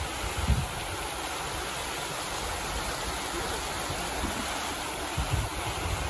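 Mountain creek rushing steadily over bedrock cascades, with brief low rumbles about half a second in and again about five seconds in.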